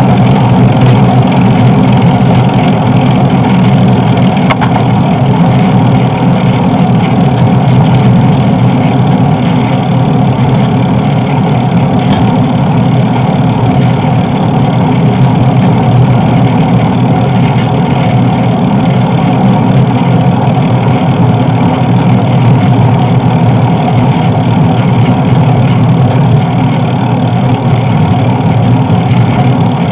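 Steady rumble of a moving bicycle ride: tyre-on-road noise and wind on the bike-mounted camera's microphone, unchanging throughout, with a few faint clicks.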